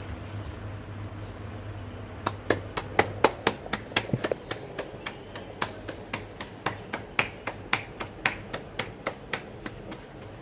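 Palms slapping a stuffed paratha back and forth between the hands to flatten it: a quick, uneven run of sharp pats, about three or four a second, starting about two seconds in.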